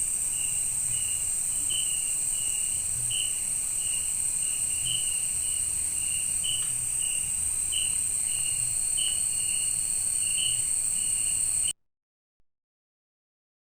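Night-time forest insect chorus: a steady high-pitched drone of crickets with a short chirp repeating about twice a second. It cuts off abruptly about twelve seconds in.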